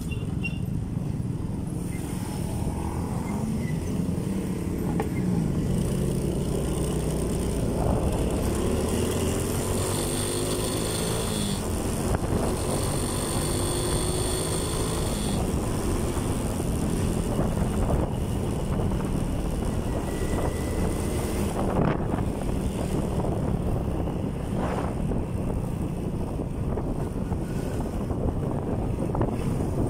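Motorcycle engine running under way, with wind and road noise; the engine's pitch rises and falls a few times several seconds in as the rider accelerates and changes gear.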